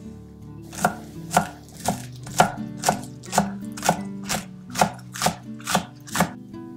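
Chef's knife chopping green onions on a wooden butcher-block cutting board: about a dozen even strikes, roughly two a second, starting about a second in.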